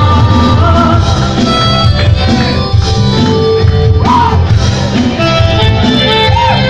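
Live rock band playing a Bangla rock song: electric and acoustic guitars and keyboard over a steady beat, with a sung vocal melody.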